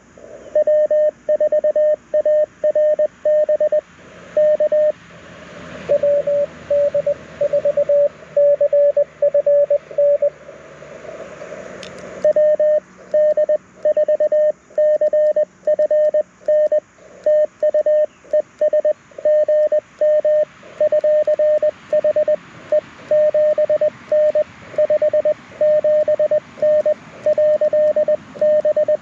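Morse code from an LNR Precision Mountain Topper MTR4B QRP CW transceiver played through a small speaker: a single steady tone keyed on and off in quick dits and dahs during a contact exchange, with receiver hiss underneath. The keying pauses for about two seconds around ten seconds in, where the band hiss swells, and resumes after a short click.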